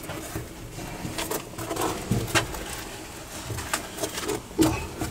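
Footsteps and scuffs climbing a narrow brick spiral staircase, with sharp taps about once a second.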